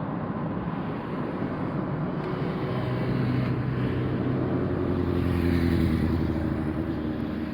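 A motor vehicle's engine and road rumble, swelling to a peak about six seconds in and then easing off.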